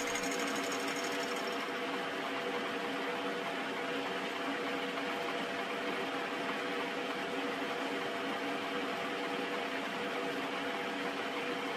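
Archdale vertical milling machine running steadily as its fly cutter skims the top face of a cast iron vice jaw: an even machine hum over the noise of the cut.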